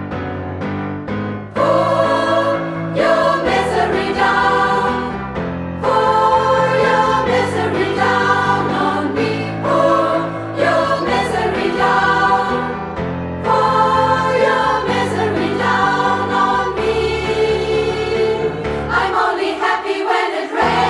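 Women's choir singing an alternative-rock arrangement in full harmony, in short repeated phrases over sustained low notes.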